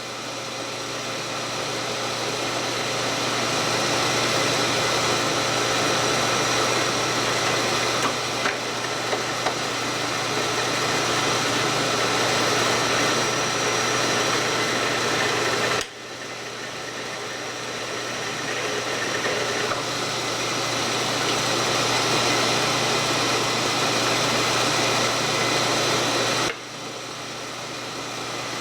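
Milling machine running at slow speed, boring a hole through a stack of four 3/8-inch plates: a steady cutting noise over a low hum, with a thin whine. The sound drops off suddenly twice and builds back up each time.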